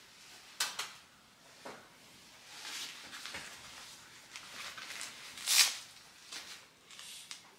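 Rustling of padded winter clothing, a toddler's mittens and snowsuit being handled, in a few short swishes, the loudest about five and a half seconds in.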